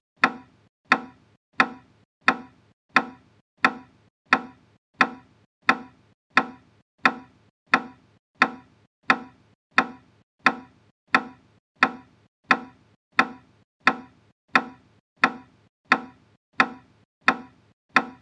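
Fast kapalbhati breathing: forceful exhalations puffed out through the nose in an even rhythm, about three every two seconds, each a short sharp burst of breath that stops at once.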